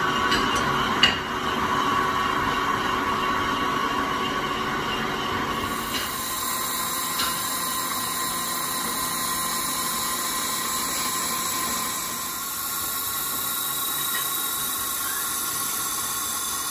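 Abrasive wheel of a grinding machine grinding the outside of a cylinder liner under coolant: a steady whine of several held tones. A sharp knock sounds about a second in.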